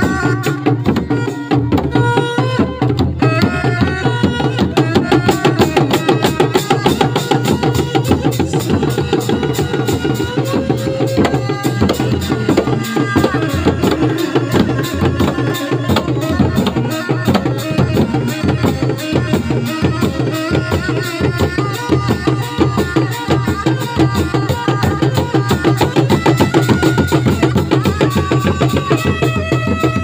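Seni reak ensemble: dogdog drums struck by hand in a fast, steady, interlocking rhythm, with a melody line sounding over the drumming.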